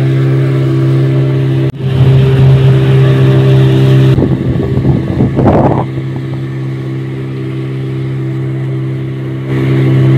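Small motor boat's tiller-steered outboard motor running steadily at speed, a constant engine drone. A rough rushing noise lies over it for a couple of seconds in the middle.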